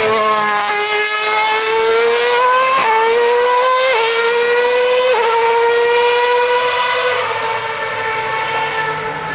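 A 2013 Formula One car's high-revving 2.4-litre V8 at speed, its high-pitched note climbing through three quick gear changes about a second apart, then holding steady and dropping a little near the end.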